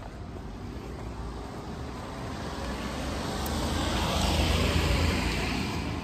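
A passing vehicle: its noise swells to a peak about four to five seconds in, then fades. Under it runs a steady low rumble of wind on the microphone.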